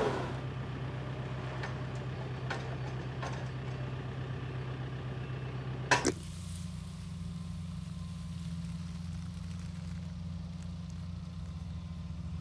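Engine idling steadily with a low hum. About six seconds in a sharp click sounds and the hum changes to a slightly different steady engine idle with a fast low pulse.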